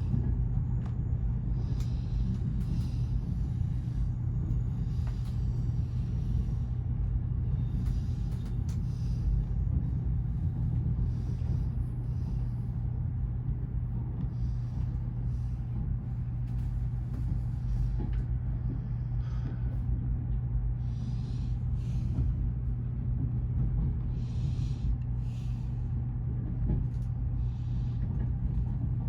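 Steady low rumble and hum of the train standing at the platform, with a short hiss every couple of seconds.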